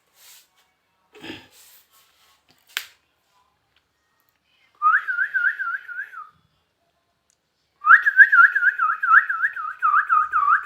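Whistling in two runs of a quick warbling trill, about five up-and-down notes a second. The second run is the longer and the louder. A couple of small clicks come before it.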